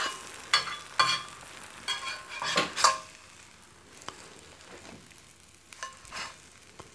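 Metal slotted spatula scraping against a cast iron crepe pan as it is slid under a rolled cheese crepe: several short scrapes with a metallic ring in the first three seconds, then quieter, with a few light taps. Butter frying quietly underneath.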